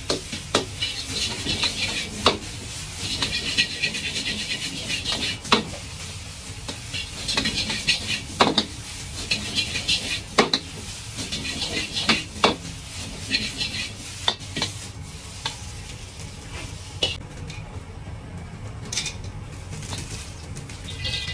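Egg fried rice sizzling in a wok as it is stir-fried, with a steel ladle scraping and clanking against the wok at irregular intervals. The sizzling dies down near the end.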